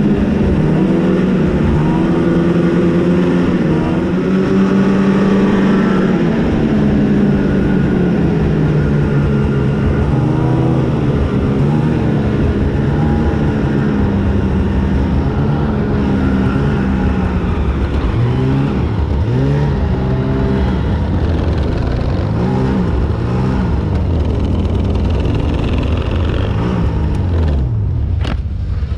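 2021 Arctic Cat ZR 8000 RR snowmobile's two-stroke twin running under way, its pitch repeatedly rising and falling as the throttle is opened and eased, with a constant low rumble underneath.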